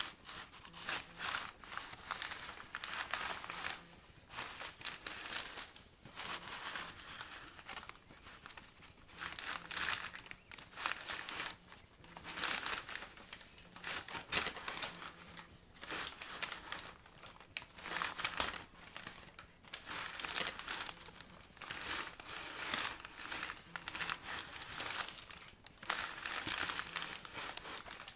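Brown paper bags crinkling and rustling in uneven bursts as they are handled, with some tearing.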